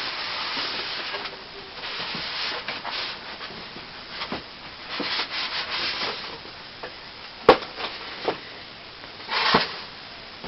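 Cardboard box and packaging being handled and opened: several spells of sliding and rubbing, with a sharp knock about seven and a half seconds in and a lighter one just after.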